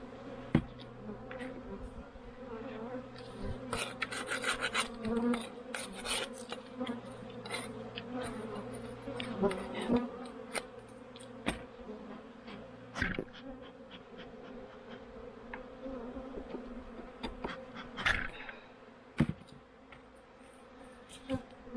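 Honeybees buzzing in a steady hum around a hive entrance during a robbing frenzy. Over the hum come irregular scrapes and knocks, with a cluster a few seconds in and a sharp one near the end, as a wooden entrance reducer is slid into the entrance.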